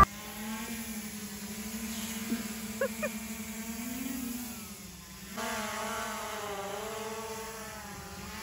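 Quadcopter drone flying, its propellers giving a steady buzzing hum that wavers gently up and down in pitch as it manoeuvres, growing louder about halfway through.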